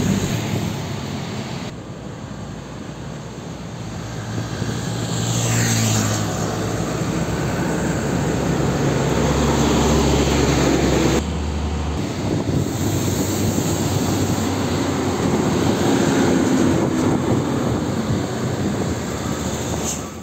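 Heavy diesel trucks driving past on a busy road, the engines' drone mixed with tyre and traffic noise. The sound changes abruptly about 2 and 11 seconds in, and fades out right at the end.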